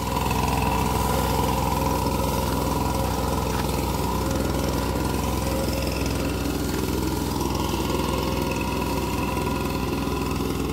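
Small engine of a backpack power blower running steadily while it broadcasts granular fertilizer over a corn crop, with a steady rush of air.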